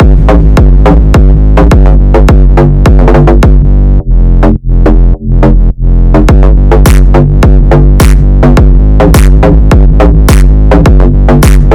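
Loud electronic hip-hop instrumental: a drum-machine beat over a heavy synth bass, with a brief break in the beat about four seconds in.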